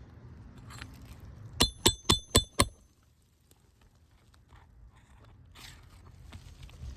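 Five quick hammer strikes on steel, each with a bright metallic ring, in about a second: a hammer driving a nail puller to pull a roofing nail from an asphalt shingle.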